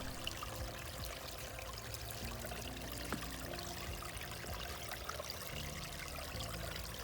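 Flowing water running steadily, an even rushing wash of sound.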